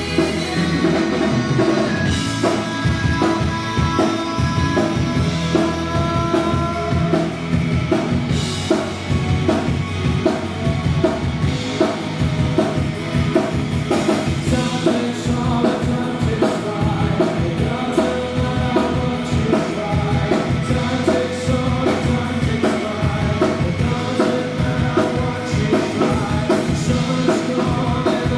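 Rock music with a singing voice and a drum kit keeping a steady beat.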